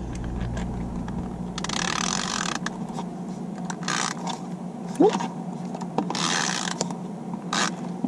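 Stampin' Up Snail adhesive tape runner being rolled across the back of a cardstock panel in three short strokes, its mechanism rasping and clicking as it lays down the adhesive, with a few clicks near the end.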